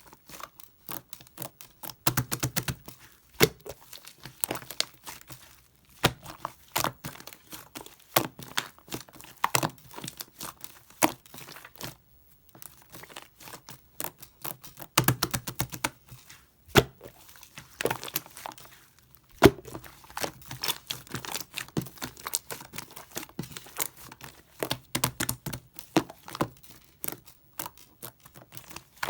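Slime being squeezed, poked and stretched by hand, giving dense, irregular clicks and pops from trapped air, with brief pauses between handfuls.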